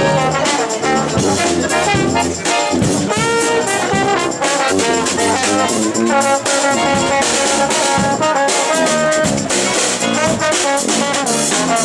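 Brass street band playing a tune: sousaphone and other horns over drums.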